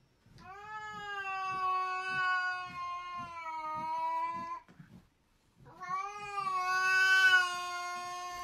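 A small grey-and-white cat yowling: two long, drawn-out calls of steady pitch, the second starting about six seconds in.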